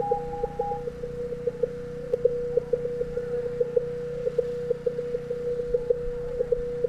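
Synthesized audio-oscillator tone reading the centre scan line of an NTSC colour-bar video signal: a steady mid-pitched hum with quick, irregular blips running along it over a low drone. A second, higher tone sounds with it during the first second.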